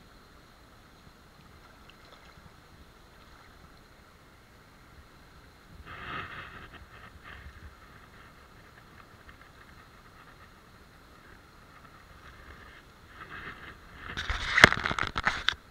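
Rubber wellington boots wading through shallow stream water: a brief slosh about six seconds in, then a louder stretch of splashing and sloshing near the end.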